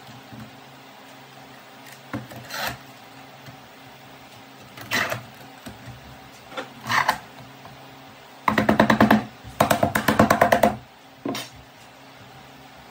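Parallel bar clamps being fitted and tightened on a glued-up hardwood cutting board: a few short clacks and scrapes of the metal clamps against wood. About eight and a half seconds in comes the loudest part, a fast rattling clatter of about a dozen clicks a second lasting around two seconds, with a short break.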